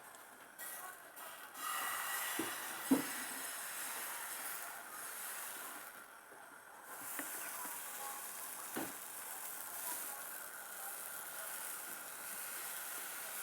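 Pancake batter frying in hot oil in a pan: a steady hissing sizzle that swells about two seconds in, with a short knock about three seconds in and another near nine seconds.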